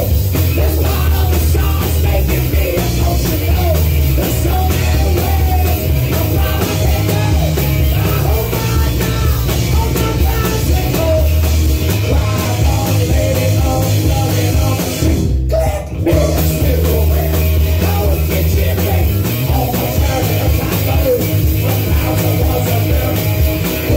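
Live rock band playing loud and steady: electric guitar and strummed acoustic guitar over a drum kit. The band stops for a moment a little after halfway, then crashes back in.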